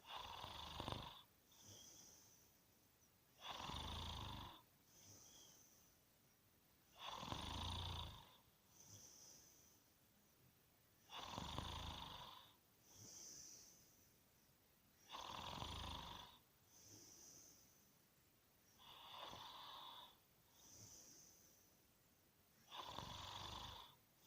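A person snoring in a slow, regular rhythm: a rough snore on each breath, about every four seconds, seven times. Each snore is followed by a softer, airy, hissing breath.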